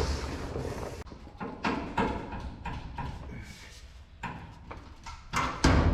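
A series of separate metallic clicks and knocks from tools working on the truck's metal parts, spaced irregularly, about a second to two apart. A louder knock comes near the end, and background music with a steady low bass comes in.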